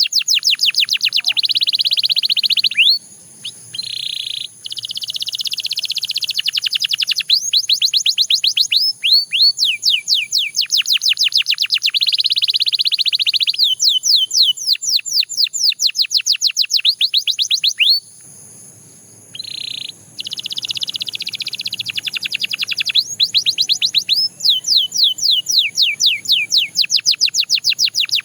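Belgian canary singing a long, loud song made of rapid tours: fast runs of downward-sweeping whistled notes alternating with buzzy trills. The song breaks off briefly twice, a few seconds in and again past the middle.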